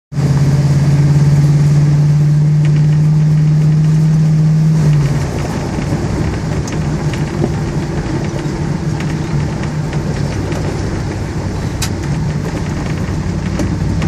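Off-road vehicle's engine running while it drives along a gravel track, with a steady low drone that drops away about five seconds in, leaving a rougher rumble of engine and tyres on gravel.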